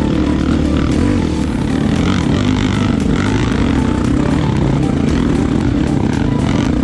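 Honda CRF250F's single-cylinder four-stroke engine running steadily while the bike is ridden along the trail, with short knocks now and then.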